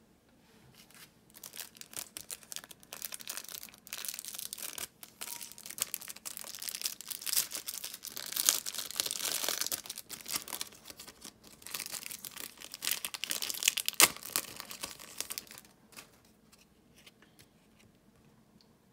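Yu-Gi-Oh! foil booster pack wrapper being torn open and crinkled by hand, crackling steadily, with one sharp crack about three-quarters of the way through. It goes quiet for the last few seconds.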